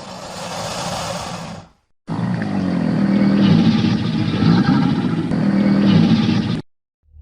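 Crocodile calls: a breathy hiss lasting about two seconds, then after a short gap a low, rough growl of about four and a half seconds that cuts off suddenly.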